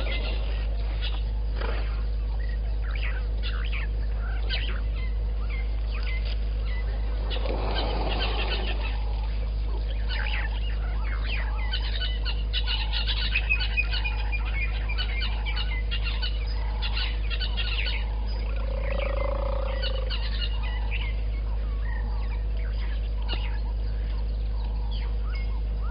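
Wild birds calling and chirping in the bush, many short calls overlapping throughout, over a steady low hum.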